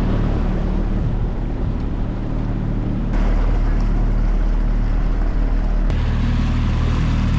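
Small outboard motor running steadily, pushing a skiff along with water rushing past the hull. The sound changes abruptly twice, about three and six seconds in.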